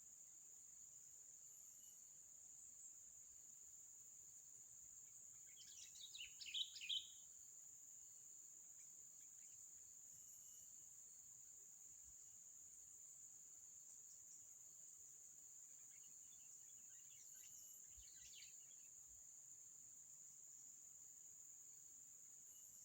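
Steady high-pitched insect drone, like crickets, with a quick run of bird chirps about six seconds in and a fainter run of chirps around seventeen seconds in.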